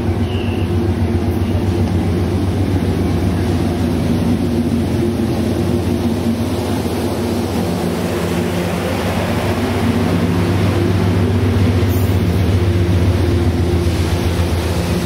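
Amtrak Pacific Surfliner passenger train rolling slowly past close by, its cars' wheels on the rails over a steady low diesel drone.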